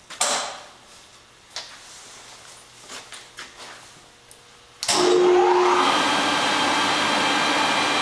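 Promax 26" x 120" engine lathe starting up about five seconds in: the spindle drive whirs up to speed with a rising whine, then runs steadily with the hum of the headstock gearing. A few clicks and knocks come first as the controls are set.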